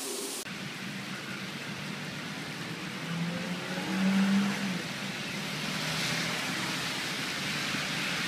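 Opens with a moment of running water, then the steady hiss of a car driving on a wet, rain-soaked road, with a low hum that swells and is loudest around four seconds in.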